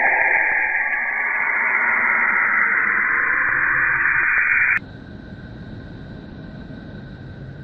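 Hissing, radio-static-like noise from a sonified spacecraft recording of a solar-system body. It cuts off abruptly about five seconds in, giving way to a quieter steady hum with faint high tones.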